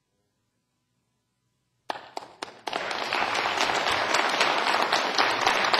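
Dead silence for about two seconds, then a few scattered claps and an audience breaking into steady applause.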